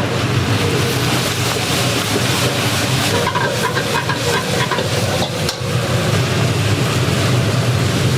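Steady roar and low hum of a street-food kitchen, with a few light metallic clinks from about three to five seconds in.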